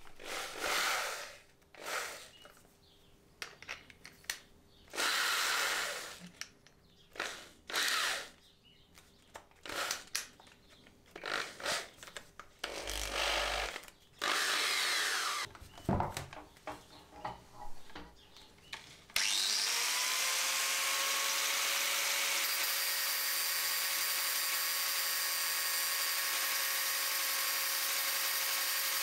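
Short bursts and handling noises, then about two-thirds of the way in an angle grinder starts with a rising whine and grinds steadily. It is grinding down a metal rod that spins in the chuck of an electric drill, using the drill as a makeshift lathe and throwing sparks.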